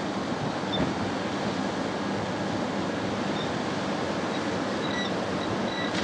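Steady rushing noise of wind and floodwater, with the water pouring through a broken levee.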